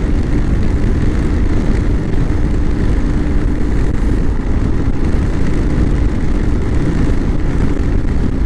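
Royal Enfield Thunderbird single-cylinder engine running steadily at highway cruising speed, under a dense low rumble of wind and road noise.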